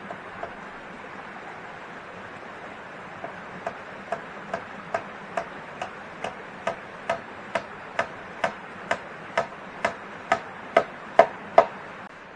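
Rhythmic knocking of a tool striking wood: about twenty sharp hits, a little over two a second, each with a short ringing note, growing louder toward the end over a steady hiss.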